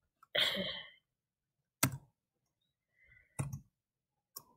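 A short breath, then three sharp single clicks a second or more apart, typical of a computer mouse being clicked.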